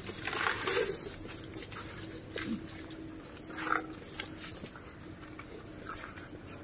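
A few short animal sounds, one after another with gaps between them.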